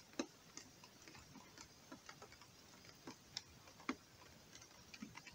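Faint, irregular clicks and light taps, roughly two a second, as a mesh crayfish trap and its catch are handled.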